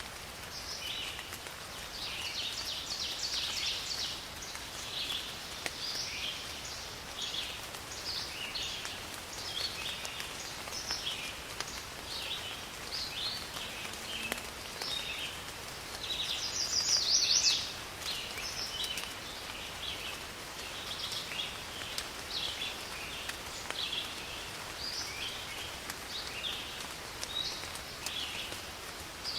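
Steady rain hiss with many birds chirping throughout, and one louder, longer call just past halfway.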